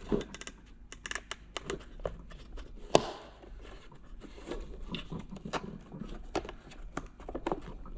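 Hands working a rubber seal onto the plastic housing of an Airtronic diesel bunk heater: a run of small irregular clicks, taps and rubbing, with one sharper click about three seconds in.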